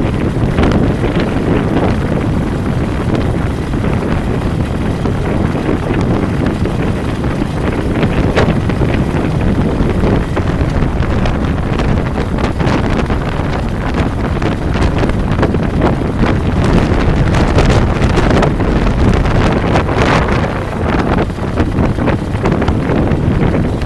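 Wind buffeting a camera microphone on a moving vehicle: a loud, steady low rush with frequent crackling gusts, over the rumble of the drive.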